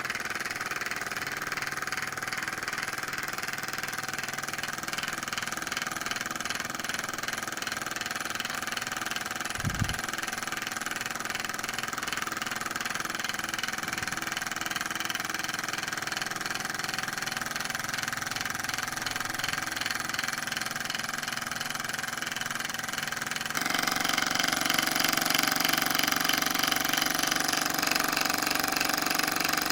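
Model Stirling engine running steadily with a fast even rhythm, its flywheel turning a small DC motor used as a generator. A single thump about a third of the way in, and the running becomes louder near the end.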